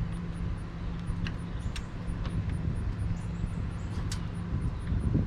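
Steady low mechanical hum from a running motor or engine, with a few sharp light clicks.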